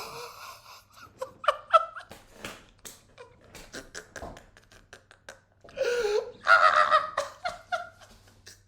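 A man laughing hard in breathy fits of short bursts, loudest about six to seven seconds in.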